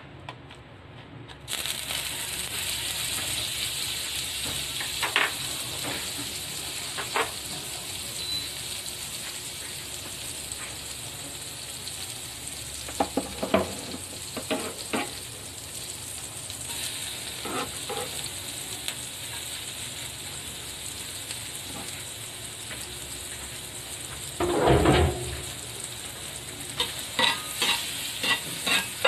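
Butter sizzling and frying in a hot cast iron pan, the sizzle starting suddenly about a second and a half in and then running steadily. Now and then a metal spoon knocks and clicks against the pan as chopped food is stirred, with a heavier thump a few seconds before the end and a quick run of spoon clicks near the end.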